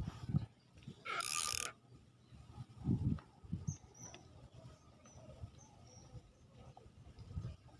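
Handling noise while freshly caught tilapia are unhooked: a short rustling hiss about a second in, then a few soft knocks.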